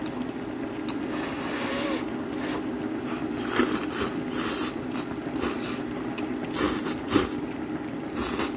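Slurping of ramyeon noodles off metal chopsticks in several short bursts, over a steady low hum from the pot kept boiling while he eats.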